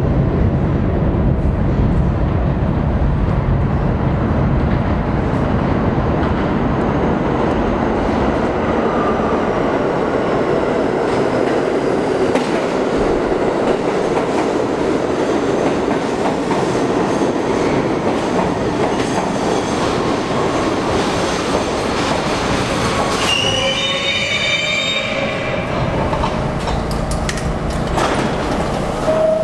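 Budd-built R32 subway train pulling into an underground station: a steady rumble of wheels on rail that eases as it slows. Near the end it gives a high wheel-and-brake squeal as it comes to a stop.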